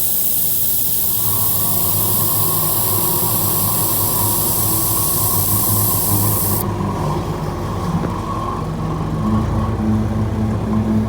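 Handheld laser welding machine running: a steady, loud hiss of gas from the welding gun over the machine's low hum, the hiss cutting off abruptly about two thirds of the way through while the hum carries on.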